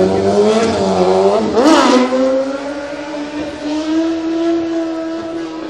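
Car engine revved hard and held at high revs, its pitch wavering. About a second and a half in it gives a quick sharp blip up and down, then holds high and slowly eases off near the end.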